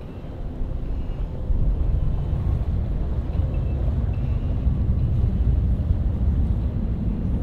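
Low rumble of jet aircraft engines, growing louder about one and a half seconds in and then holding steady.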